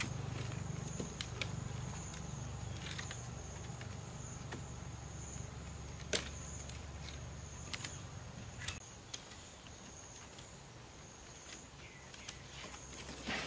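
Scattered light clicks and taps of sticks and wire as a handmade stick-and-wire fish trap is handled and adjusted, about ten separate clicks, over a steady high-pitched insect drone and a low hum that weakens about two-thirds of the way through.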